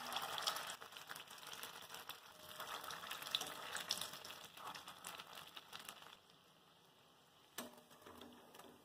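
Potato vadas deep-frying in hot groundnut oil in a steel kadhai, a crackling sizzle. About six seconds in the sizzle drops off sharply, and a single sharp clink of the steel slotted spoon against the pan follows.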